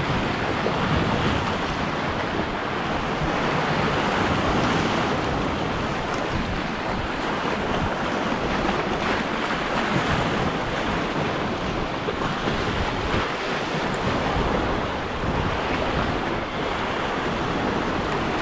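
Sea surf washing over shoreline rocks in a steady, rushing wash that swells and eases, with wind buffeting the microphone.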